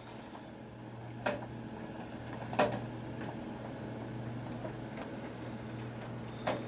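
A steady low hum with three short, light clicks: about a second in, past two and a half seconds, and near the end.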